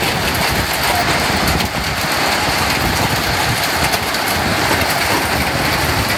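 Small hailstones and rain falling steadily on wet pavement: a dense, even hiss of many small impacts.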